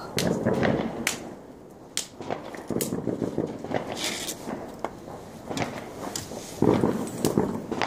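Several sharp cracks from fireworks going off, spaced a second or more apart.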